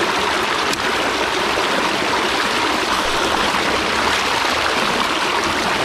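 Steady rushing of running water, like a stream, with no change throughout.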